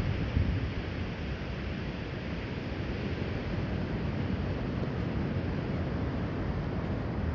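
Steady wash of ocean surf mixed with wind rumbling on the microphone.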